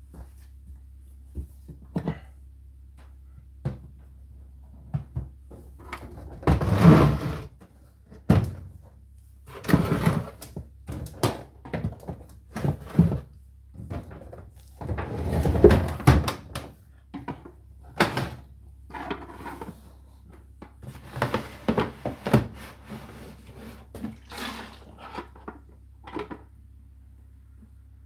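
Knocks and clunks of plastic parts being handled on an Indesit condenser tumble dryer as its condensed-water container is pulled out of the top drawer slot. Several longer scraping noises among them, the loudest about 7 and 16 seconds in, over a faint low hum.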